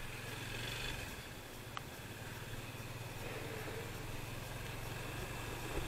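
Motorcycle engine running at a steady speed on the road, a low hum under an even rush of wind and road noise, with one brief click about two seconds in.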